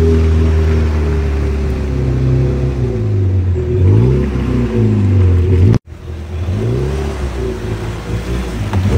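Motorboat engine running, its pitch rising and falling as the speed changes. It drops out abruptly a little before six seconds in, then resumes.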